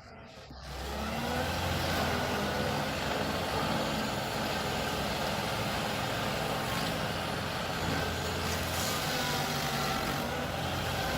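Heavy machinery running: a large engine and steady mechanical noise, cutting in abruptly about half a second in.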